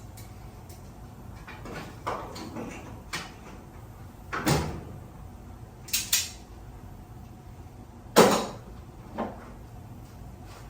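A series of separate knocks and clunks, about seven in all with a quick double knock near the middle and the loudest about two-thirds of the way in, from hands-on work on a damaged sectional garage door.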